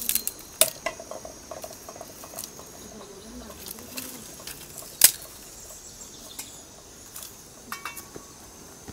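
Dry twigs and branches snapping and rustling as they are broken and laid for a wood fire, with a sharp crack about five seconds in.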